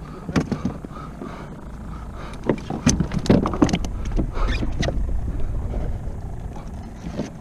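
Handling gear on a plastic fishing kayak: scattered knocks, clicks and scrapes against the hull and deck, busiest in the middle, over a steady low rumble.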